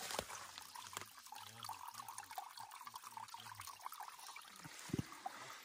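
Water bottle held under the surface of a shallow stream, filling with a faint gurgling trickle of water. A short thump about five seconds in.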